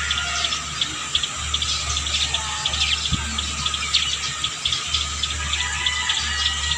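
Small birds chirping: many short, quick calls, with a low rumble that comes and goes underneath.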